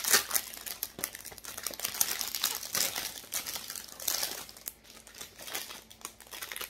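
Clear plastic packaging crinkling and rustling in irregular bursts as it is handled, the loudest right at the start.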